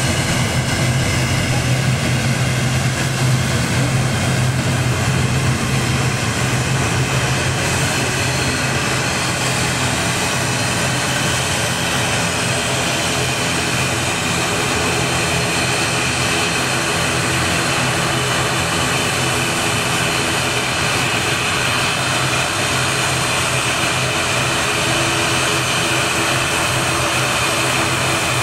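Airplane engines running, a loud steady drone with a steady high whine over a low hum.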